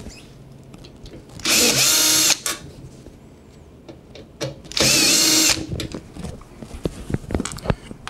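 Cordless drill-driver running in two short bursts of just under a second each, about three seconds apart, backing out the two screws that hold a washing machine's water inlet valve to the back panel.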